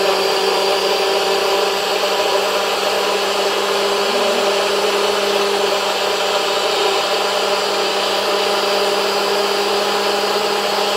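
NutriBullet blender motor running steadily, blending strawberries and milk into a shake.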